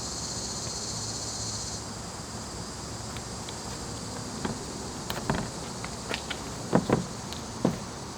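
Cicadas buzzing in a steady high chorus that drops away sharply about two seconds in. Several light clicks and knocks follow in the second half.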